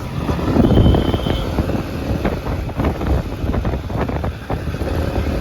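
Wind buffeting the microphone over a steady low vehicle rumble. A short thin high tone sounds about a second in.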